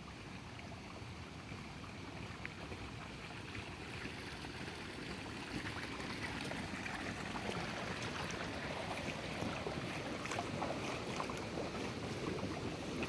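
River water running over rocks, with wind on the microphone. The water grows a little louder about halfway in, where many small ticks join it.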